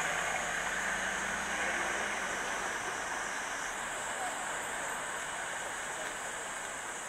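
Steady outdoor background hiss, an even wash of ambient noise with no distinct events.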